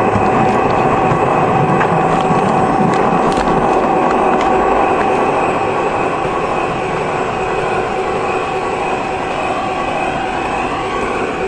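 O27 model train running, heard from aboard: a steady electric motor and gear whine with wheels rolling on the rails. Sharp clicks come in the first few seconds as the wheels cross track joints and switches.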